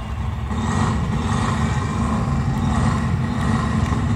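Arena concert crowd noise: a steady, dense low roar that grows louder about half a second in.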